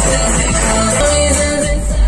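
A song with singing and heavy bass playing loud through a 2021 Hyundai i20's music system at full volume, heard inside the car's cabin.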